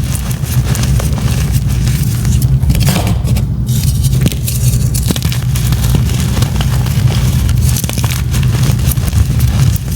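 Blocks of gym chalk being crushed: a dense, steady run of small crackling crunches over a low rumble.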